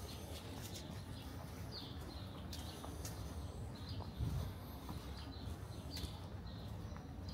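Outdoor city ambience: a steady low rumble with footsteps and short bird chirps every second or so.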